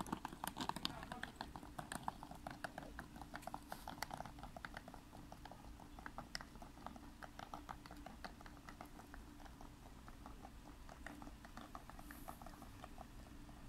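Wheeled suitcase rolling over brick platform paving: a rapid, irregular clatter of small wheels over the joints, loudest at first and growing fainter as it moves away. A faint low steady hum lies beneath.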